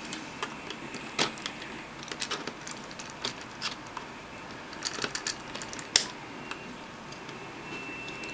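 Light, irregular metallic clicks and scrapes of a small screwdriver and a metal pick working at tiny screws in a tablet computer's plastic case, with a sharper click about six seconds in.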